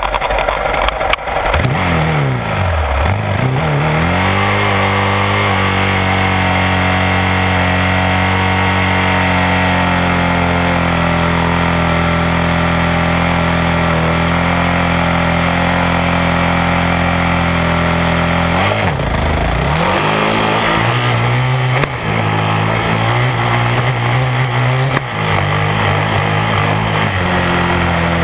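Off-road vehicle engine running close by: its pitch dips and recovers about two seconds in, then holds steady for about fourteen seconds. Near 19 s it revs down and up again, and it keeps changing pitch unevenly through to the end, rising in the last second.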